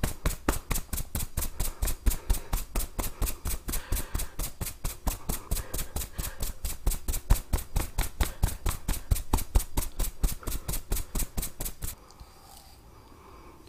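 Rapid, even tapping strokes of a head massage, about five a second, that stop abruptly about twelve seconds in.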